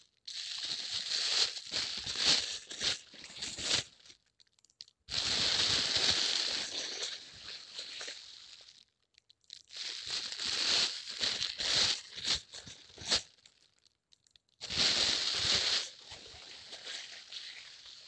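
Plastic waste being crumpled and crinkled by hand, in four bouts of about four seconds each with short silent gaps between.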